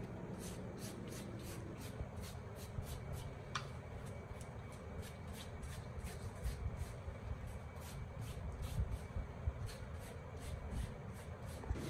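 Flat paintbrush swept across a cloth mat, its bristles pushing loose flakes of debris, in rapid, regular strokes.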